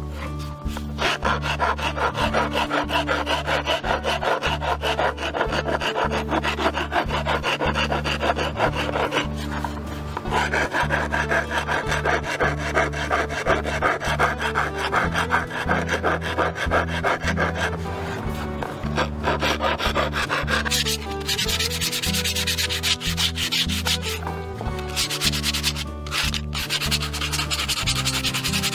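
Wood rasp scraping back and forth over a walnut plate in runs of strokes with short pauses. About two-thirds of the way through it gives way to sandpaper sanding the wood, a brighter, hissier rubbing.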